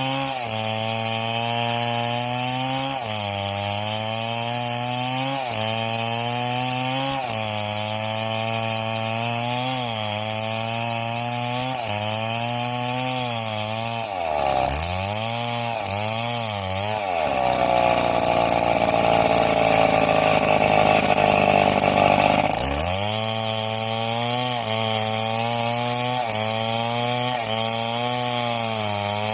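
Two-stroke chainsaw running under load as it cuts wood, its pitch sagging briefly every second or two. About halfway it drops in speed a few times, then revs higher and louder for about five seconds before settling back to its cutting speed.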